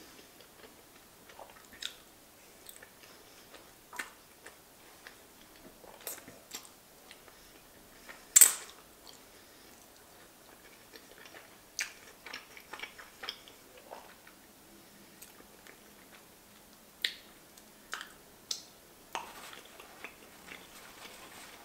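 Close-miked eating of sauced giant fusilli pasta: soft wet chewing and mouth smacks at irregular intervals, with a sharper, louder one about eight seconds in.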